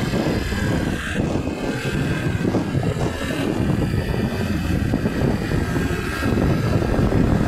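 Wind buffeting the microphone and a scooter running along the road while riding, a steady low noise with no breaks.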